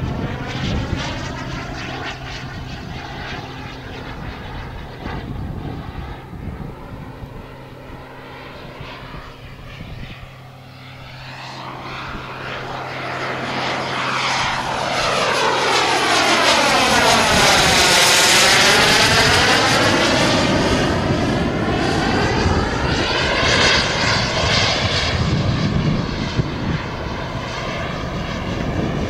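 Model jet turbine of about 30 kg thrust, powering a radio-controlled scale Dassault Mirage 2000, whining in flight. It fades, then grows louder to a close pass about 18 seconds in with a sweeping whoosh, and stays loud afterwards.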